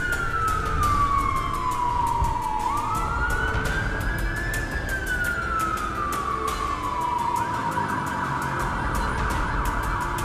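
Ambulance siren wailing in slow falling and rising sweeps, then switching to a rapid warble about seven seconds in, over low traffic rumble.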